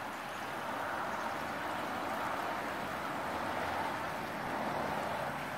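River water rushing steadily over shallow, rocky rapids: an even rush.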